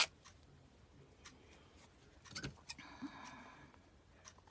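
Quiet handling of scissors and fabric: a couple of light clicks, then a brief faint scrape about three seconds in as the scissor blades work against the fabric.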